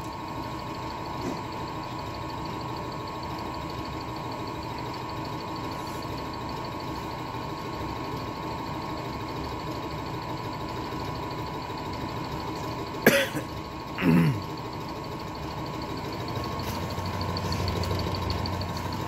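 Hydraulic pump of a concrete compression testing machine running steadily with a constant whine as it loads a concrete test cube, the load still rising short of failure; it grows a little louder near the end. Two brief cough-like sounds break in about thirteen and fourteen seconds in.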